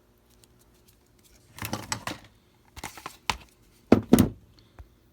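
Handling noises of tools and objects on a work surface: a rustle, a few sharp clicks, then two loud knocks about four seconds in.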